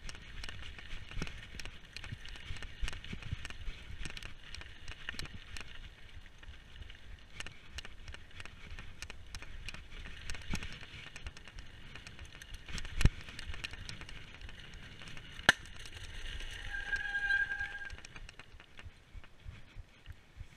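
Mountain bike rolling fast over a gravel trail: continuous tyre crunch and frame rattle with many small clicks and knocks. There is a hard knock about thirteen seconds in and a sharp crack about two seconds later, followed by a squeal lasting over a second.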